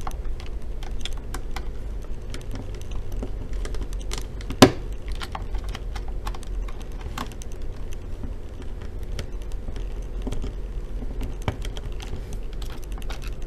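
Phillips screwdriver turning a screw out of a laptop's metal screen hinge: a run of small, irregular clicks and ticks, with one sharper click about four and a half seconds in.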